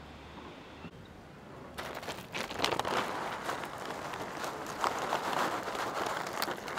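Newspaper rustling and crinkling in a hand, starting about two seconds in and going on as a dense crackle of small clicks, as food is tipped out of the paper for a cat.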